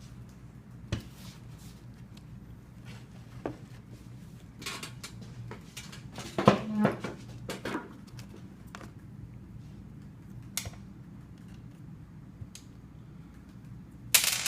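Scattered clicks and clinks of metal tools and parts being handled on a workbench while the trimmer's carburetor side is worked on, with a louder clatter about six and a half seconds in and a brief noisy rustle near the end, over a steady low hum.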